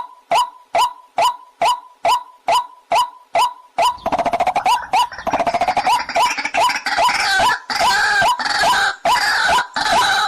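Waterhen (jal murgi) calling: short, loud calls repeated evenly about twice a second. About four seconds in they break into a denser, faster chatter of overlapping calls, then settle back into the even calls near the end.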